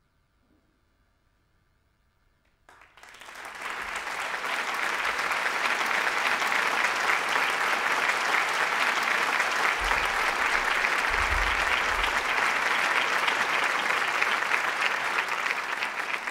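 Audience applause that breaks out suddenly about three seconds in after a short near-silence, then continues steadily, easing slightly near the end. A few low thumps sound under it around the middle.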